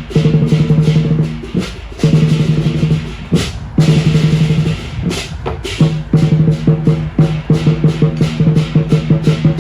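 Chinese lion dance percussion: a large drum beaten in fast rolls with cymbals clashing along, and a few louder cymbal crashes midway.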